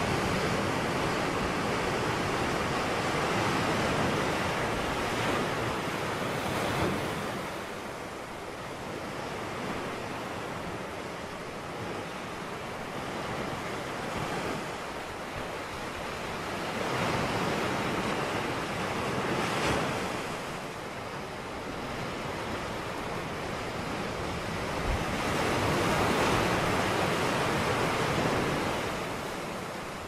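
Ocean surf breaking and washing up a sandy beach: a steady wash of water noise that swells and fades in slow surges, three times over the half minute.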